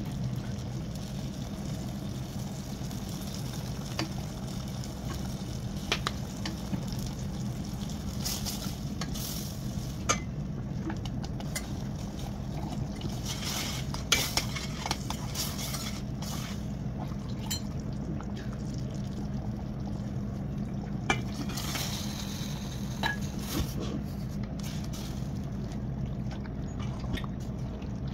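A spoon stirring and scraping thick tomato sauce in a stainless steel pot, with occasional sharp clinks of metal against the pot, over a steady low hum.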